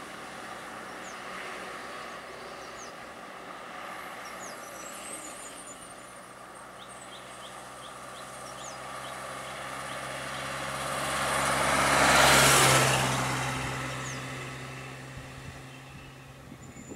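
Motor vehicle engines running on a road, with one vehicle passing close by: its engine and tyre noise swell to a peak about twelve seconds in, then fade away. Faint high chirps sound now and then.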